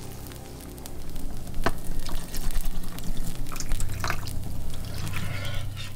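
Cooking sounds at a stove: liquid poured and dripping into a frying pan, with a few sharp clinks of utensils against pans.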